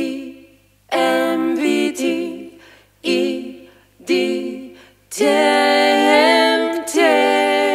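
Background song with singing: short notes about once a second, each fading away, then long held notes from about five seconds in.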